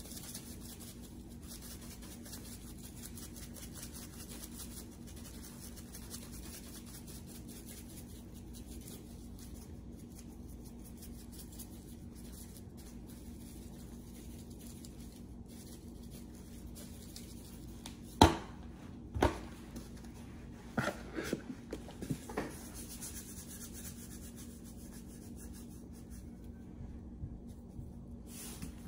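Low, steady room hum. About two-thirds of the way in come a few sharp knocks: two loud ones a second apart, then a quick scatter of lighter clicks.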